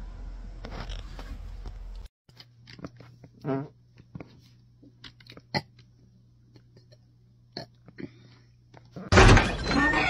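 A woman's short, rippling fart about three and a half seconds in, among faint scattered clicks. Near the end comes a sudden loud burst of noise.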